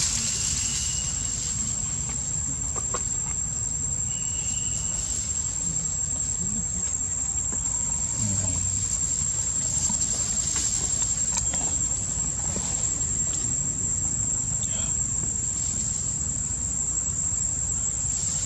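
Insects calling outdoors in one continuous, steady high-pitched drone, over a low rumble. Two short higher chirps come about half a second in and again about four seconds in.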